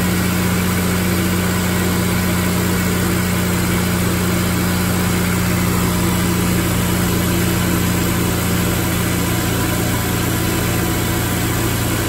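Honda S2000's DOHC VTEC four-cylinder engine idling steadily and evenly. The valve clearances have just been adjusted and the random misfire and sputter it had at idle is gone.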